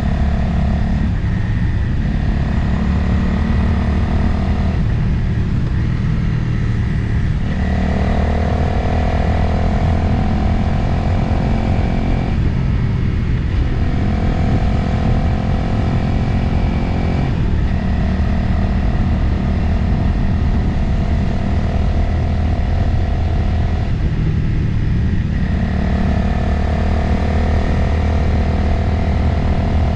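Motorcycle engine running while riding along a road, with steady wind rush; the engine note holds for a few seconds at a time and changes about every five seconds as the throttle is eased and opened again.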